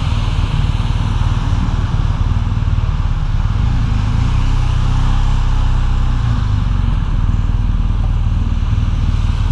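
BMW R1250 GS Adventure's boxer-twin engine running steadily at low road speed, over a constant hiss of heavy rain and wet road.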